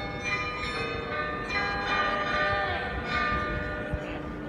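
The Munich New Town Hall glockenspiel's tuned bells playing a melody, each struck note ringing on under the next ones.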